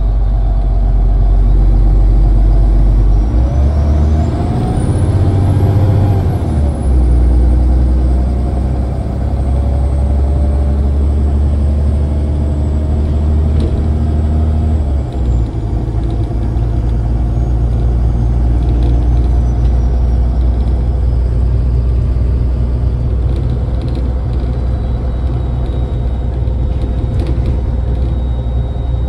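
Engine and drivetrain of a MAZ-203 city bus heard from inside the cabin while it drives, with road noise. The engine note shifts a few times as the bus changes speed, and a thin high whine climbs over the first few seconds, then slowly falls away.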